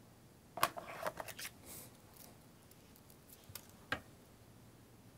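Faint handling noise of small items picked up off a workbench: a quick run of light clicks and rustles, then one sharper click about four seconds in.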